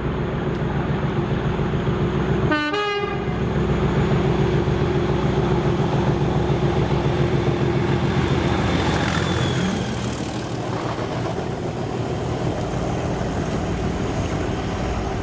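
Class 37 diesel locomotive's English Electric V12 engine running under power, a steady heavy diesel note, with a short horn sound about three seconds in. The engine eases a little after about ten seconds.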